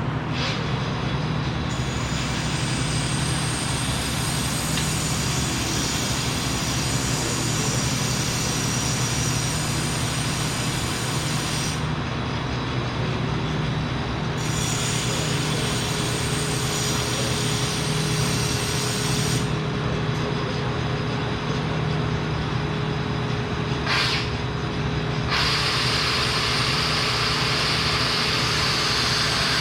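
Steady hum of welding shop equipment, with a high-pitched hiss and whine that switches on and off several times. Two sharp clicks, one just after the start and one about 24 seconds in.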